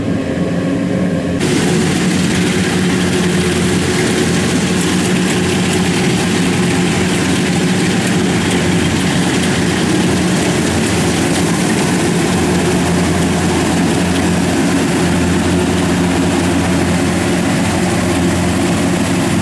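A small engine running steadily at a constant speed. A loud rushing hiss joins it about a second and a half in and stays.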